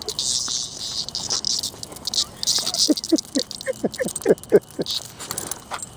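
A cicada buzzing in harsh bursts as the dog harasses it, the insect's distress buzz. In the middle comes a run of short, falling squeaks.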